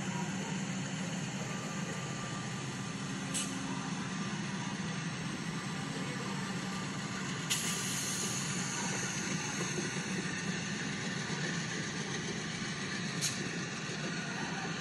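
LEGO model train running on its plastic track: a steady whirring rumble with three sharp clicks.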